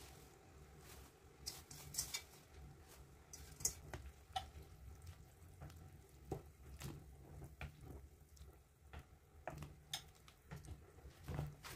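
A wooden spatula stirring moringa leaves into a pot of hot broth, with faint irregular taps and clicks against the pot over a low steady hum.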